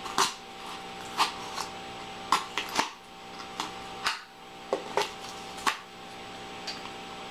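Foam board being cut by hand: a string of short, crisp snips and clicks at uneven intervals, over a steady low hum.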